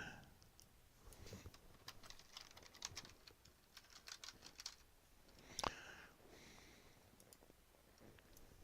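Faint, scattered clicking at a computer, a quick run of light taps in the first few seconds and one louder click about five and a half seconds in.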